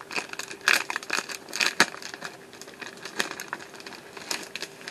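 Plastic packaging crinkling and crackling in irregular spells as a model kit box is opened, with one sharp click about two seconds in.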